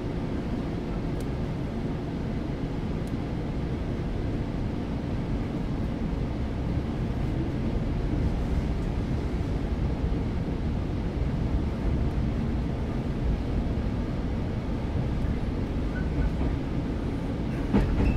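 Running sound inside a JR 115-series electric train's motor car as it pulls away from a station: the traction motor hum and wheel rumble grow steadily louder as the train accelerates. There is a single sharp knock near the end.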